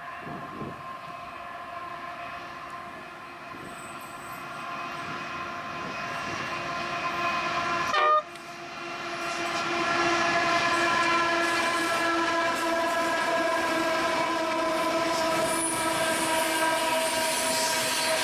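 Diesel locomotives hauling a loaded coal train, approaching and then passing close, with a steady engine drone of several held tones over the rumble of wheels on the rails. The sound grows louder, breaks off abruptly about eight seconds in, and comes back louder as the wagons roll past.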